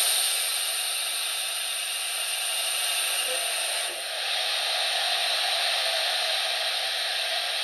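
Train-brake sound from the sound decoder in a Bachmann HO-scale ALC-42 Charger model, played through its onboard speaker: a steady hiss of air brakes releasing. It eases off a little at the start, dips briefly about four seconds in, then carries on.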